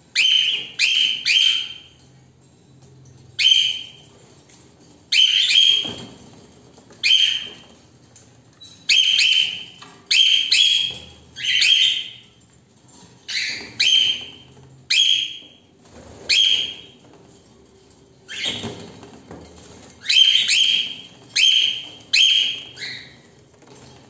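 Cockatiels calling: loud, short, harsh calls, one at a time or in quick runs of two or three, repeated every second or two.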